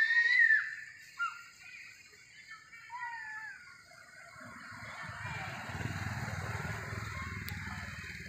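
A few short, high whistled calls, the loudest near the start, then a low vehicle rumble that swells about halfway through and eases off near the end.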